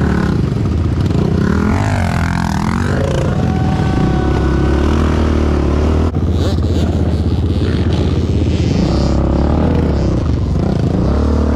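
Yamaha Banshee 350 ATV's two-stroke twin running on DMC 916 expansion-chamber pipes, its pitch rising and falling with the throttle.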